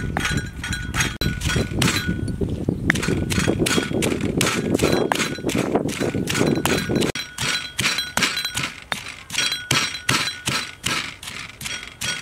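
Pestle pounding chilies in a stone mortar: a steady rhythm of dull thuds, about three a second.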